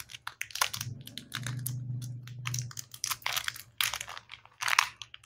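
Peanuts in their shells being cracked open and shelled with the fingers close to the mic: a run of short, sharp cracks and crackles.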